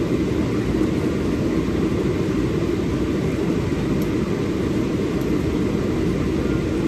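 A steady low rumbling noise that holds an even level throughout, with no beat, clicks or changes in pitch.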